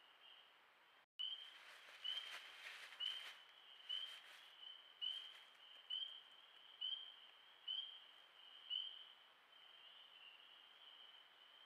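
A short high chirp repeated about once a second over a steady high-pitched chorus of night calls, with faint crackling rustles in the first few seconds. The sound cuts out briefly about a second in.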